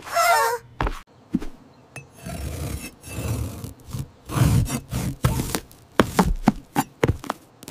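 Knife cutting through vegetables: a few rasping, sawing strokes, then a quick run of sharp chopping knocks on the board near the end.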